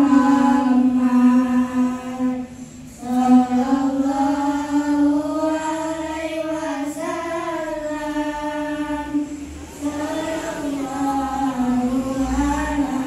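A group of boys singing together into microphones without accompaniment, long held notes in a chant-like melody, with brief breaks between phrases about two and a half seconds in and near ten seconds.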